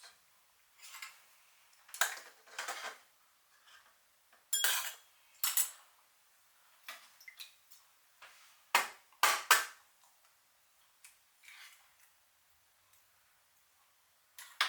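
Metal utensils clinking and scraping against an aluminium mess tin in scattered short bursts, one stroke ringing briefly; the two loudest knocks come about nine seconds in.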